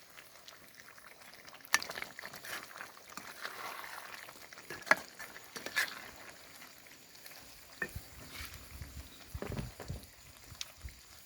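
Turkey curry in a pan on the heat, just after curry leaves are added: faint sizzling and bubbling while it is stirred, with scattered sharp clicks of the spoon against the pan.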